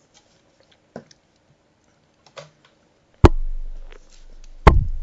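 A few faint clicks, then two loud knocks about a second and a half apart, each followed by a low rumble that fades: papers and objects being handled on a desk close to the microphone.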